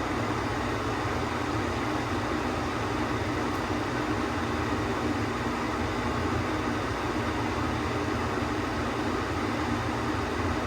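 A steady rushing whir with a low hum, like a fan or escaping steam, that starts abruptly and holds level.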